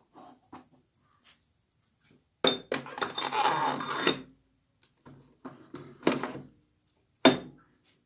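Metal transmission parts clinking and clanking against the transmission case as they are fitted into a Fordomatic two-speed automatic by hand: a few light taps, then a run of rattling clinks about two and a half seconds in, and a sharp single clank near the end.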